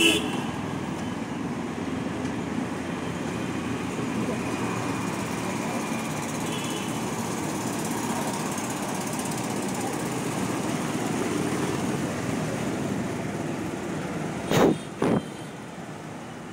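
Steady rumble of an engine running, with two short sharp knocks close together near the end.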